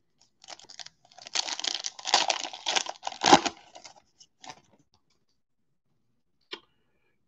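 A foil baseball-card pack wrapper being torn open and crinkled, a crackly rustle lasting about three seconds. A few faint ticks follow as the cards are handled.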